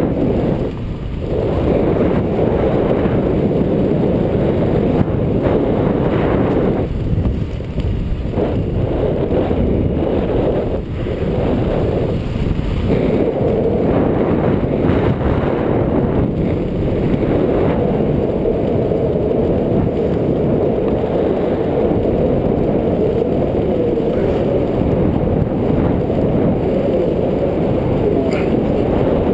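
Heavy wind rushing and buffeting against a helmet-mounted action camera's microphone, a steady low rumble with brief dips, as heard in wingsuit flight.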